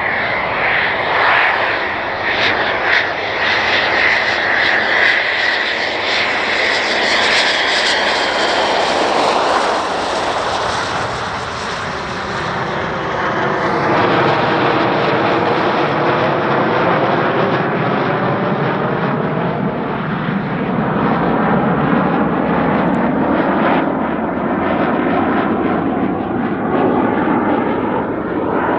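Military jet aircraft engines running loud and continuous. A high whine is prominent for the first several seconds. After that it turns into a shifting, swishing rush.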